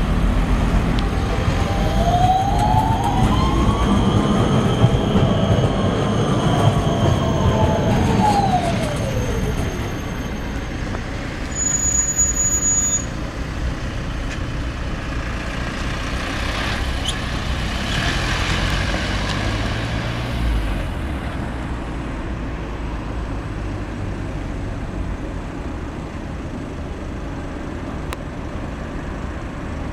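Street traffic with cars and a Škoda 14T low-floor tram passing over the rails. In the first few seconds an electric whine rises and then falls in pitch over several seconds.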